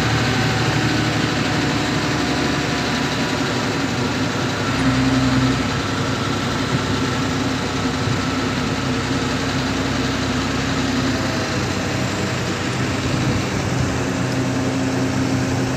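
Heavy diesel engine running steadily under a crane lift. Its note changes and grows a little heavier about five seconds in, then eases back about eleven seconds in.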